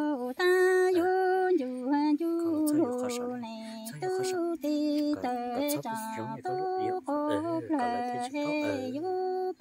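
A woman's voice singing unaccompanied in the Hmong chanted-verse style (lus txaj), long held notes stepping up and down between a few pitches, each line sliding off at its end.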